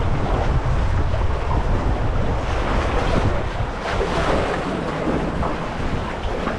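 Wind buffeting the microphone over a steady rush of water from a boat under way on open sea.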